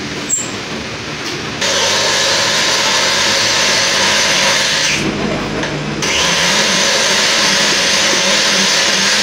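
A power drill driving a valve seat cutter into a motorcycle cylinder head starts about a second and a half in and runs with a loud, steady cutting whir. It stops for about a second near the middle, then starts again. Before it starts there is a low steady hum and a couple of clicks.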